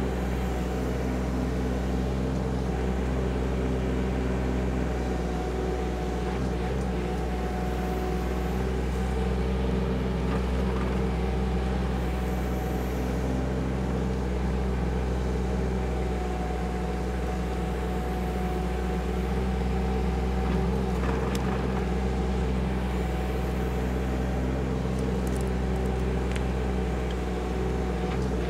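KYMRON ZX22D mini excavator's diesel engine running at a steady speed while the machine digs, with now and then a faint knock.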